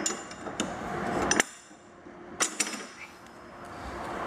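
Sharp metal clacks and clinks of a fold-out chain lashing bracket in a trailer floor being flipped and dropped back into its steel floor pocket, several knocks spread over the first few seconds.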